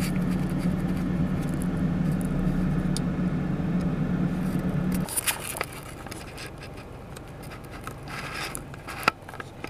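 Inside a car, a steady low hum of the car running that cuts off abruptly about halfway through. It is followed by quieter scraping and rustling handling noise and a sharp click near the end.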